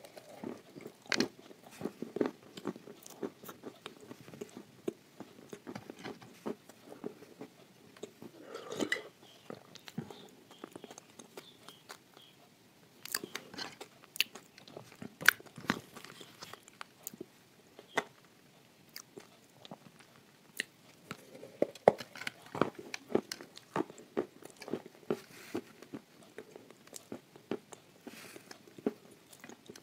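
Close-up biting and chewing of a hard, crunchy chunk of edible clay spread with paste: sharp crunches and snaps come in spells, with a couple of quieter pauses between them.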